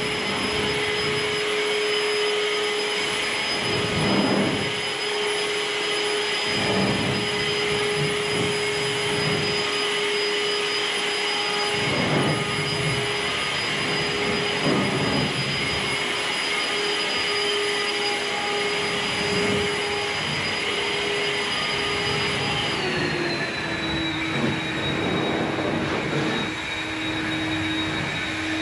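Leaf blower running steadily, blowing dust out of a shop; its steady whine drops lower about 23 seconds in and rises again near the end.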